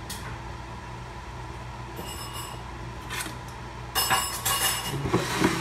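A steady low hum, then about four seconds in a brief clatter of a plate being handled on the kitchen counter, with a ringing clink of crockery.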